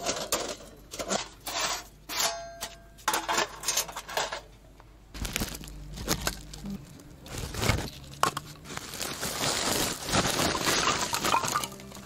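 Irregular clinks, knocks and rustling of things being handled, with a short ringing clink about two seconds in.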